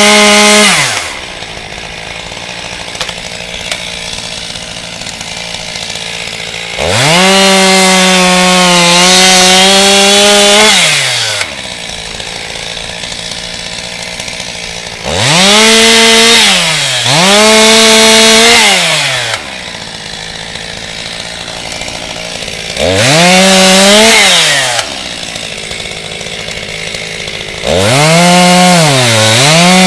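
Two-stroke Stihl chainsaw cross-cutting a fallen log. It revs repeatedly from idle to full throttle, holds for two to four seconds at a time with small dips in pitch, then drops back to a low idle between cuts.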